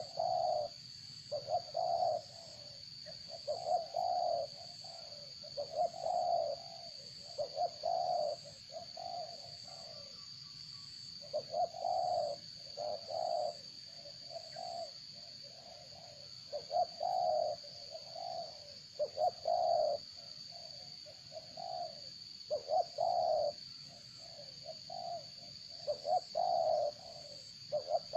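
Doves cooing over and over in short groups of low notes, with a steady high-pitched whine underneath.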